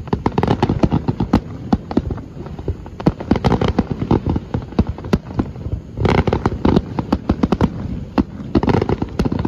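Aerial fireworks bursting in quick succession: a steady run of bangs and crackles, with denser volleys about six seconds in and again near the end.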